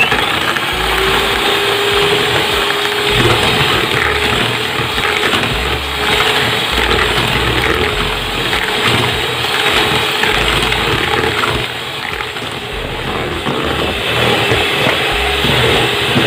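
Electric hand mixer running at high speed, its twin beaters whisking eggs, sugar and SP emulsifier in a plastic bowl to a pale, foamy batter. A steady motor whine over the whir of the beaters in the liquid.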